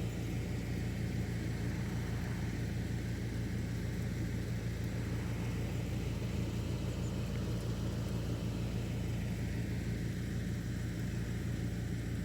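Outdoor air-conditioning unit running with a steady low hum and fan noise.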